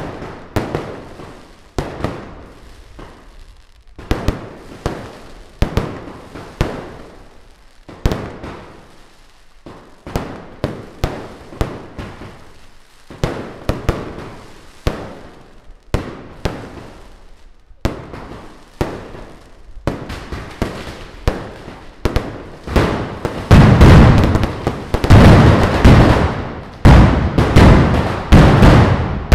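Mascletà firecrackers going off: sharp bangs, singly and in short clusters with uneven gaps between them. About three-quarters of the way through they turn into a dense, almost unbroken barrage of much louder bangs.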